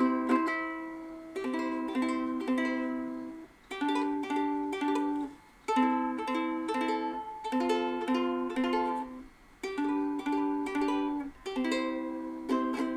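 Soprano ukulele with nylon strings being strummed, chord after chord in a steady rhythm, with a few brief breaks between phrases.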